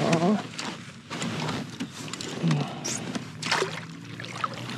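Water splashing and sloshing as a hooked pickerel thrashes beside a plastic kayak, with scattered knocks and clicks of gear against the hull. A brief voice sound comes at the very start.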